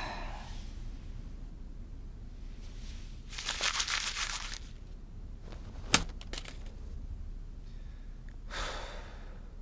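A sheet of paper rustling and crinkling in a burst of a second or so as it is handled, then a single sharp click, and a shorter, softer rustle near the end.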